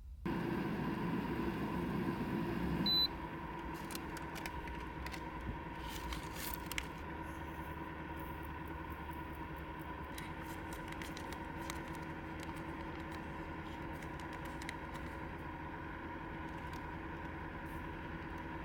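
A small machine's steady hum with a faint held tone, louder for about the first three seconds, with scattered light ticks.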